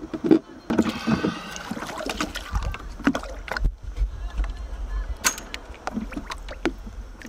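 Water splashing and sloshing around a snorkeller at a yacht's stern swim platform as he ducks under, with several sharp knocks, the loudest about five seconds in.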